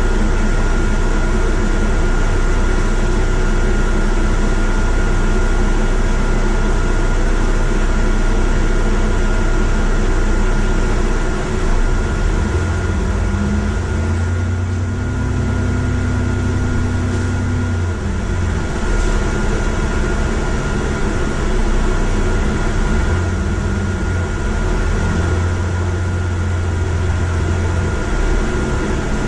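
A bus engine, heard from inside the upper deck, runs at idle with a steady cabin hum. About 12 seconds in it revs up as the bus pulls away, and its pitch drops again around 18 seconds. It rises twice more near the end as the bus gathers speed.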